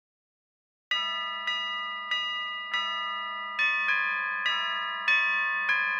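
Bell-like chimes struck one after another, about two a second, starting about a second in, each note ringing on under the next: the instrumental opening of a song.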